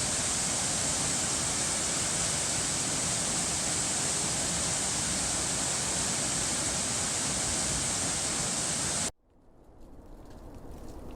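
Waterfall rushing in a steady, even hiss that cuts off suddenly about nine seconds in. A quieter hiss with faint crackles then fades in.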